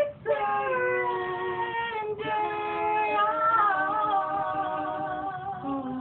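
Two women's voices singing long held notes in harmony, with short breaths between phrases near the start and about two seconds in.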